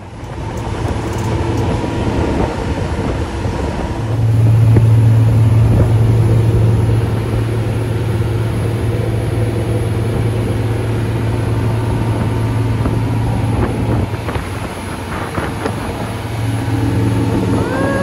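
Aluminium tour boat's engines running steadily at speed, a low drone under the rush of wind and churning wake, briefly louder a few seconds in.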